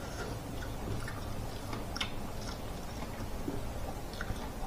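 Faint, scattered small wet clicks and smacks of eating by hand: fingers working rice on a plastic plate, and chewing.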